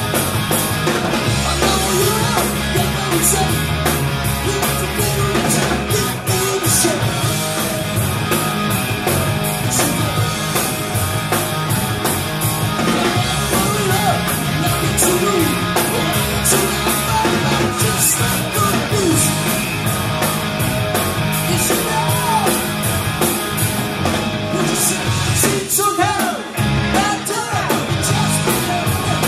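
A live rock band playing at full volume: electric guitars, bass and drums with cymbal crashes, with a male lead singer. Near the end the bass drops out for about a second while the singing carries on.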